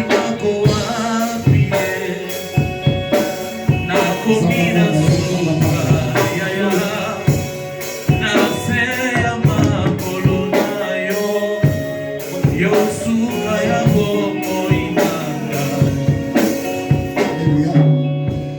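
Congregational gospel singing with a live band, drums keeping a steady beat, during the offering.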